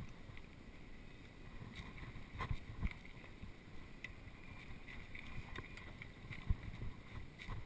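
Mountain bike ridden over a bumpy grass trail: a low rumble of tyres and wind on the microphone, with scattered light clicks and a few dull thumps as the bike goes over bumps.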